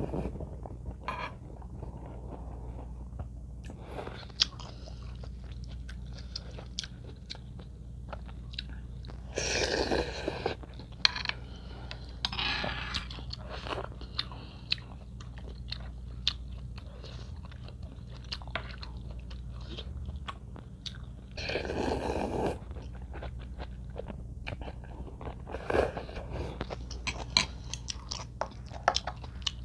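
Close-up eating sounds: chewing and crunching food, with many sharp clicks throughout and two longer slurps of soup from a spoon, about ten and twenty-two seconds in.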